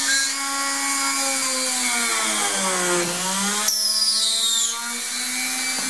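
Rotary tool in a drill-press stand running at slow speed, drilling through a hardened polymer clay bead: a steady motor whine that sags in pitch about two to three seconds in as the bit bites under load, then picks back up. A brief high falling squeal comes near four seconds in.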